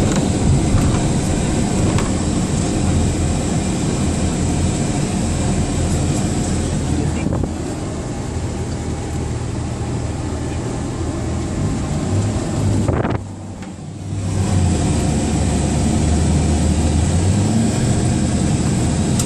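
Steady road and engine rumble heard from inside a moving vehicle, with wind noise on the microphone. It drops away suddenly for about a second around thirteen seconds in, then comes back.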